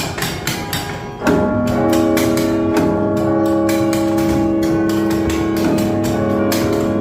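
Carillon bells being played: quick, sharp strikes, then about a second in a loud chord of bells sounds and keeps ringing, with further notes struck over it.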